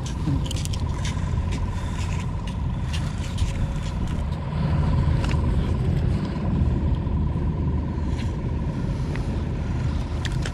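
Steady low engine rumble with a thin, steady whine running through it, and scattered light clicks and scrapes.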